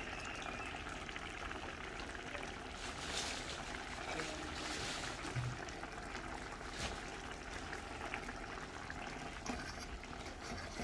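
Pot of home-style chicken simmering in thick gravy: a steady bubbling hiss with occasional small pops.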